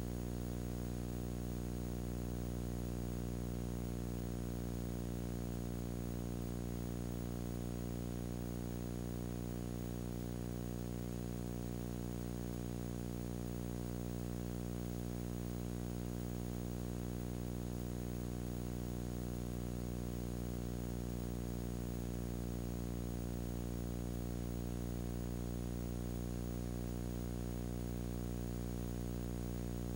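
A steady low electrical hum with many even overtones, unchanging, over faint hiss.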